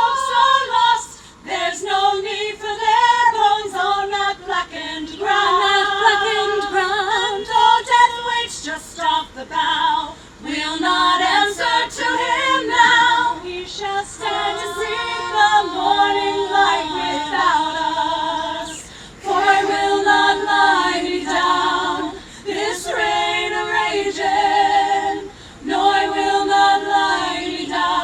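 A cappella vocal group singing in harmony, several voices moving together in sung phrases with brief pauses between them.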